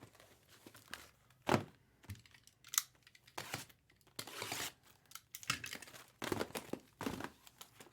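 Plastic trading-card packaging being torn open and crinkled, in short irregular spells, with a few sharp taps and knocks between them.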